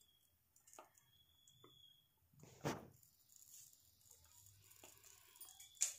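Near silence with a few faint, short knocks, the clearest about two and a half seconds in and just before the end.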